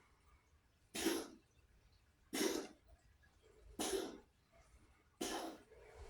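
A cat coughing: four short hacking coughs at an even pace, about one and a half seconds apart. The owner suspects the cough could be a sign of feline asthma.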